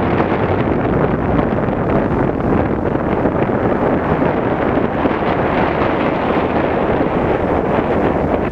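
Loud, steady rushing noise of wind buffeting the microphone, likely with the ship and sea beneath it.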